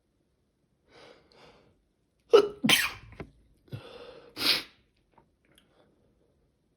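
A man's sneezing fit: two quick breaths in, a loud sneeze, a longer drawn-in breath, then a second loud sneeze.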